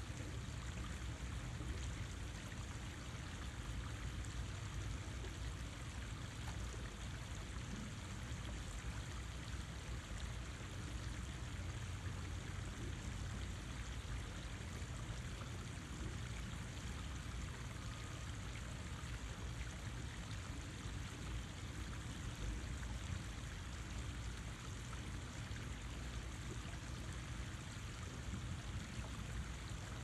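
Water running steadily, an even unbroken rush with no change.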